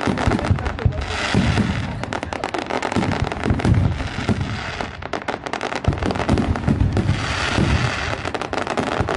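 Aerial fireworks bursting: rapid crackling and popping of many shells, with deep booms underneath, easing off briefly about halfway through before picking up again.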